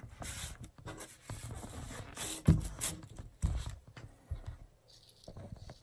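Hands fitting a foam board against a thick hardcover book: light rubbing and scraping, with two soft knocks about a second apart, about two and a half seconds in.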